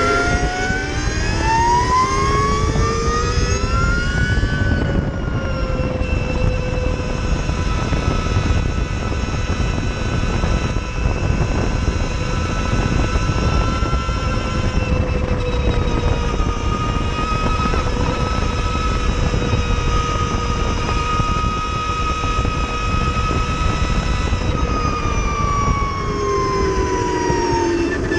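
Energica Ego electric motorcycle's motor whine, made of several tones together, rising in pitch as the bike accelerates in the first few seconds, holding steady at cruising speed, then falling near the end as it slows. Wind noise rushes underneath.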